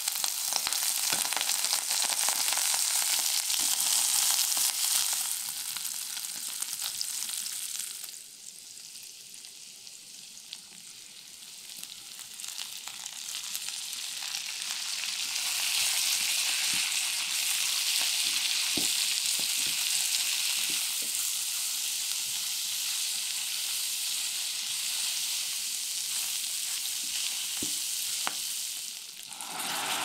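Strips of cured pork sizzling in hot oil in a small electric pot, then chopped bok choy and meat stir-fried with a wooden spatula. The sizzle quietens for several seconds about a third of the way in and then builds back up, with light taps and scrapes of the spatula.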